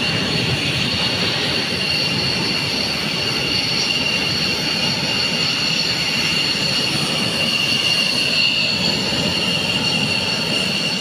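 Military jet engines running on the ground: a steady rushing noise with two high, steady whining tones.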